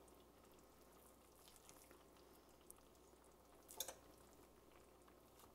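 Near silence: a faint hiss of orzo simmering gently in the pan, with one brief soft knock of the silicone spatula against the pan just before four seconds in.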